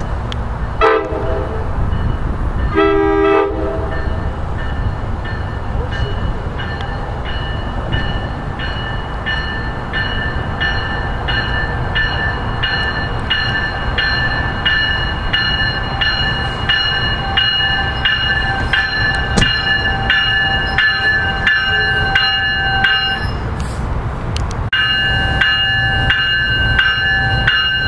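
NJ Transit commuter train approaching and pulling in with a steady low rumble. Its horn sounds two short blasts near the start, the second a little longer. After that a bell rings steadily at about two strokes a second, pausing briefly near the end and then coming back louder.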